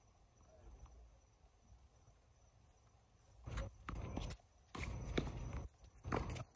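Tennis rally on a hard court: after a quiet start, from about three and a half seconds in, a run of sharp hits and scuffing footsteps as the players move and strike the ball.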